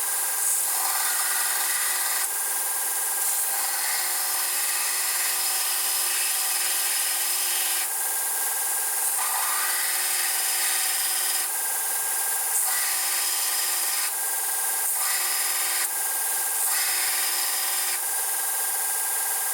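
A power tool's motor running steadily as it cuts into the steel of a Remington 700 bolt handle, a high grinding hiss over a steady hum that changes abruptly several times.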